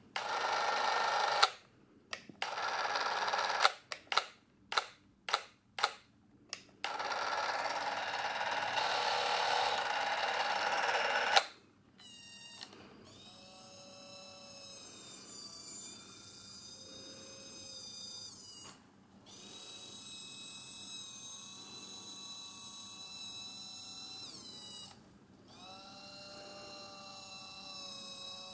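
Revue Cine S/8 Super 8 camera's small electric motor running: first a loud whir started and stopped in a quick series of short bursts, then held for a few seconds. After that a quieter, steadier whine runs on, broken twice, its pitch settling each time it starts.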